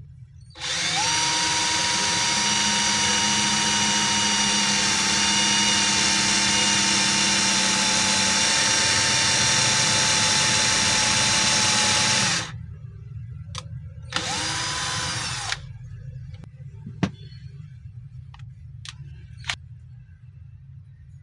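12 V cordless drill boring into the end of a softwood block: the motor runs steadily for about twelve seconds with a high whine, stops, then runs again for about a second and a half. A few light knocks follow near the end.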